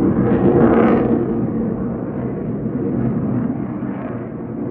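Jet noise from a pair of RAF Eurofighter Typhoons' EJ200 turbofans passing overhead: a loud rushing roar that peaks about a second in, then slowly fades.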